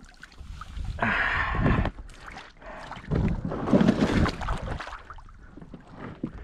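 Water sloshing and splashing around an inflatable boat's hull as it is pushed off a stony shore into the water, in two louder bouts, about a second in and again from about three seconds in.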